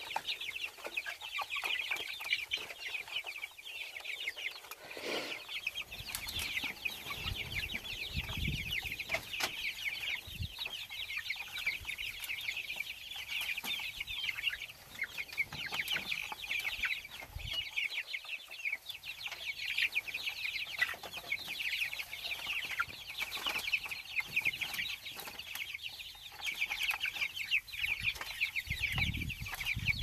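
A flock of young white broiler chickens peeping continuously, a dense chatter of many quick high chirps, while they feed at a trough.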